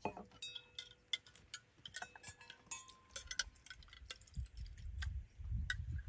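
Metal forks clinking and scraping against decorated bowls during eating: a quick, irregular run of light clinks, some ringing briefly. A low rumble rises toward the end.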